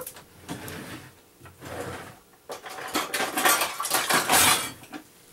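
Metal kitchen utensils clinking and clattering as they are rummaged through in search of a metal measuring cup, loudest from about two and a half seconds in to just before the end.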